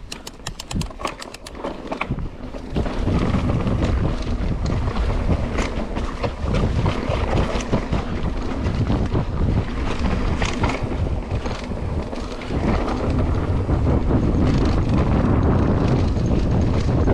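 Mountain bike riding a sandy dirt trail at speed: wind buffeting the microphone and the tyres rumbling over the ground, with scattered knocks and rattles from the bike over bumps. A quick series of ticks comes in the first second or so, and the rumble builds as the bike gathers speed.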